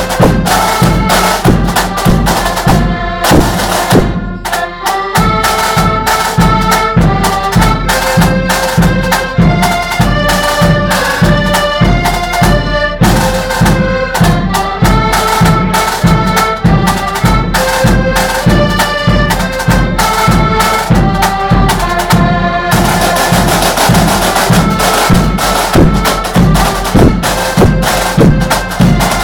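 Accordion marching band playing a tune: accordions carry the melody over a steady beat of snare and bass drums. The sound thins briefly about four seconds in and grows fuller near the end.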